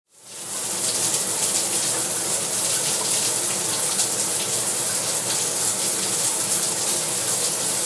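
Water running steadily in a bathroom, a constant hiss that fades in over about half a second.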